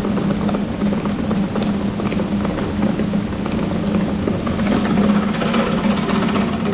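Grain auger running steadily: a constant mechanical hum under a dense, rushing hiss of grain moving through it.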